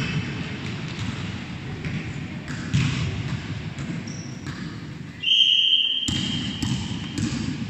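Several basketballs bouncing on a gym floor as children dribble, a steady patter of knocks. About five seconds in comes a long, high, steady whistle tone lasting nearly two seconds, the loudest sound here.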